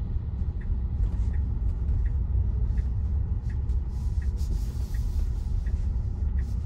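Low road rumble inside a Tesla's cabin as it drives slowly, with the turn-signal indicator ticking evenly, about one tick every 0.7 seconds, while the car makes a turn.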